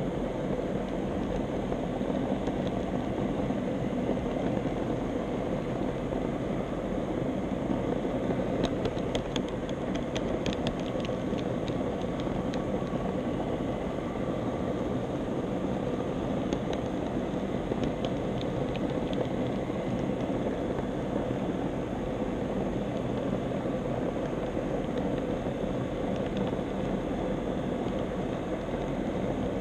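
HO scale model tram's motor and wheels running steadily along the track, a continuous whirring rumble. A run of light clicks comes about nine to eleven seconds in, and again briefly around eighteen seconds.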